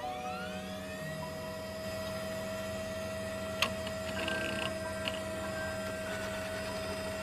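A computer powering up on its own: a whine rising in pitch for about the first second, then settling into a steady electronic hum. A single sharp click comes about three and a half seconds in.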